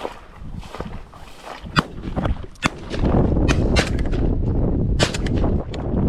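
Two shotgun shots about a second apart, fired at flushing snipe, followed from about three seconds in by a steady low rumble on the microphone.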